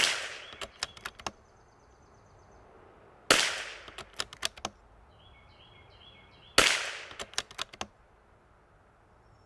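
Vudoo bolt-action .22LR rifle firing Eley Ultra Long Range rounds: three shots about three seconds apart. Each crack is followed by a quick run of clicks as the bolt is worked to chamber the next round.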